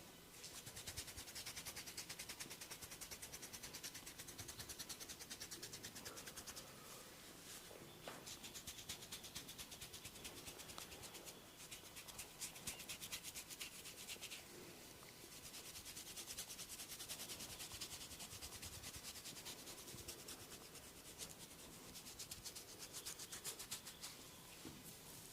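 Close-miked hands rubbing over skin during a massage, a fast run of scratchy strokes that eases off briefly twice.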